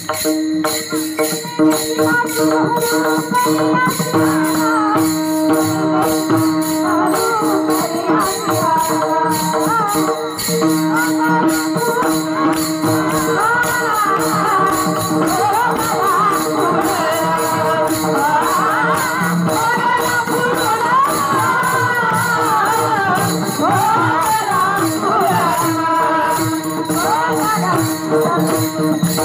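Varkari bhajan in raga Bhairavi: a chorus clanging small taal hand cymbals in a steady rhythm over a held drone. A voice sings a flowing, ornamented melody over it from about seven seconds in.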